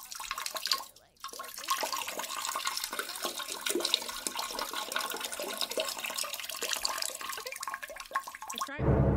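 Water trickling and splashing into a toilet bowl, with a short break about a second in.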